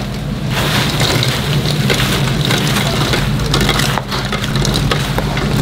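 Fried-chicken stall kitchen: a continuous crackling sizzle with many small clicks and clatters over a steady low hum.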